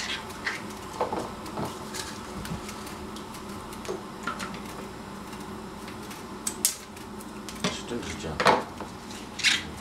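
Unripe quinces being scrubbed by hand in a stainless steel bowl of water, with water splashing and the fruit knocking against the metal bowl, a few sharper knocks near the end.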